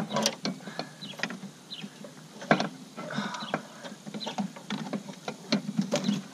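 Irregular metallic clicks and knocks as the old brake master cylinder of a 2004 Cadillac DeVille is worked loose from its mounting by hand, with sharper knocks right at the start, about two and a half seconds in and near the end.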